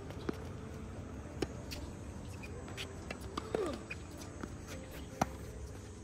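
Tennis rally on a hard court: sharp pops of racket strikes and ball bounces every second or two, the loudest about five seconds in. A short falling squeak comes just past halfway.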